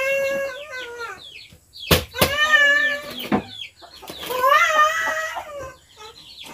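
A young child crying in several drawn-out wails, with a couple of sharp knocks about two and three seconds in.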